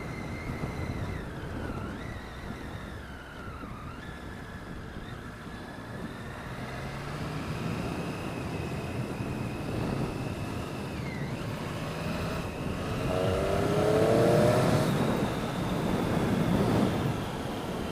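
Motorcycle engine running under way over wind and road noise, its pitch dipping and climbing again a few times, then a louder surge of rising revs about thirteen seconds in.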